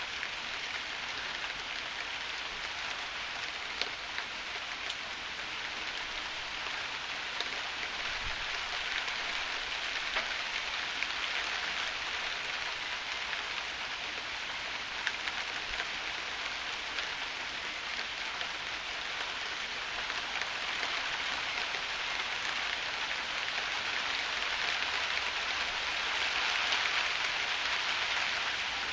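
Heavy rain falling steadily, with scattered sharp drop impacts standing out. It swells louder for a few seconds near the end.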